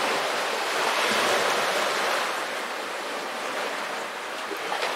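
Small sea waves washing over rocks and pebbles at the shoreline: a steady surf hiss that swells about a second in and then slowly eases.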